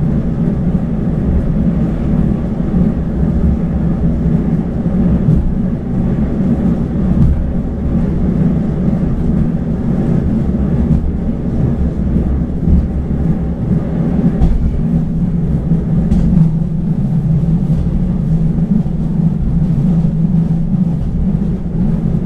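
A passenger train running, heard from inside the carriage as a steady, unbroken low rumble.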